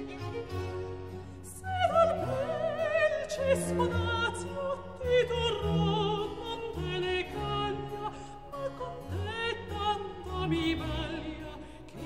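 Background music: a classical operatic song in which a singer with wide vibrato comes in about two seconds in, over a soft instrumental accompaniment.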